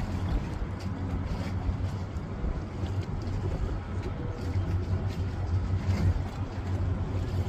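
A steady low rumble with a constant deep hum, like engine or machinery noise across a harbour.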